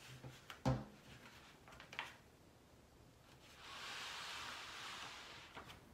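Handling of a potted cannabis plant and its trellis net: a knock about a second in, a lighter click near two seconds, then a rustle of leaves and netting for about two seconds as the plant is moved.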